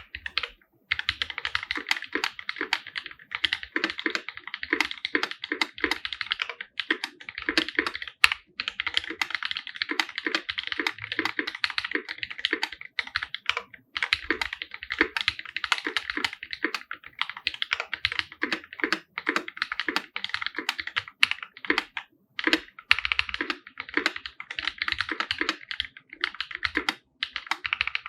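Continuous fast typing on a 50% custom mechanical keyboard with an aluminum case, fitted with original Holy Panda tactile switches and GMK Laser keycaps: a dense stream of keystroke clacks, broken by a few brief pauses.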